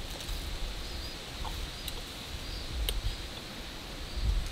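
Faint bird chirps repeating in the background, with a single sharp clink of a fork against a stainless steel frying pan about three seconds in.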